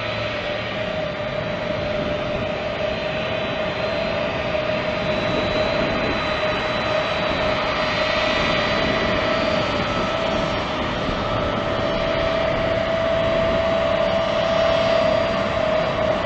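Turbofan engines of a C-17 Globemaster III military transport running as it taxies close by: a steady jet roar with an even, high whine, slowly growing louder.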